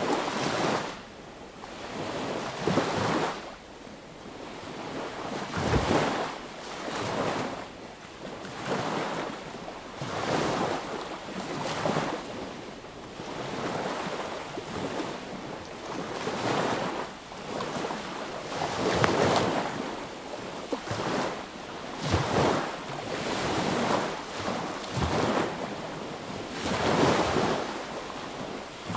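Small sea waves breaking and washing up the beach, a new surge every two to three seconds.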